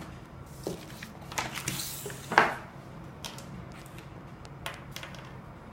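Box contents and packaging being handled during an unboxing: a brief rustle followed by scattered light clicks and knocks, the sharpest about two and a half seconds in.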